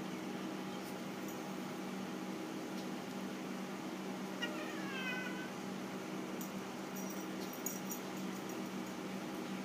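A cat gives one short meow, bending down in pitch, about halfway through, over a steady low hum.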